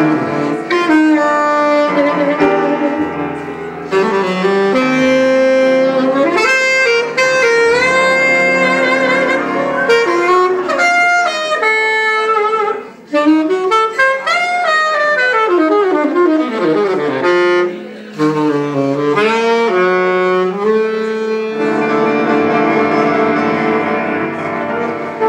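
Saxophone playing fast, winding jazz lines over piano and double bass in a live trio, then settling onto a long held note near the end.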